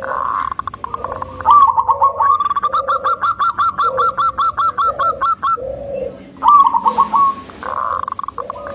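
Zebra dove (perkutut) singing its staccato cooing song: quick phrases of rolling coos, including a long run of rapid repeated notes at about seven a second for some three seconds, with lower gruff notes underneath.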